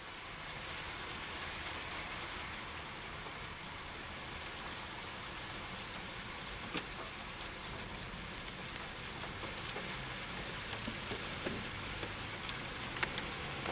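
Steady hiss of sleet falling, with a few sharp ticks of drops striking a nearby surface, more of them near the end.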